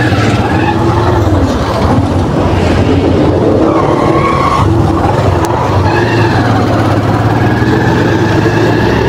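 Motorcycle engine running steadily while riding through city traffic, with road noise and the sound of cars close by.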